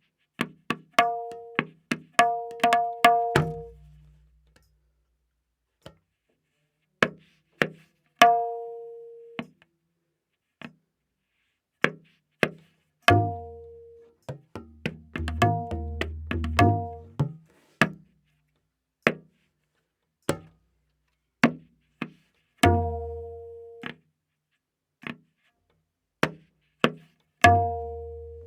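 Tabla playing a slow vilambit ektaal theka, the dayan tuned to A#. Sharp strokes come a second or so apart with gaps between, some ringing at the drum's pitch, others with the bayan's deep bass ringing underneath that sometimes slides down in pitch.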